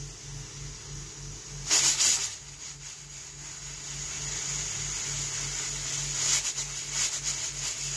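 Pressure cooker venting steam through its weighted whistle valve: a loud hissing burst about two seconds in, then a hiss that grows from the middle on with sharper spurts, as pressure builds toward a whistle.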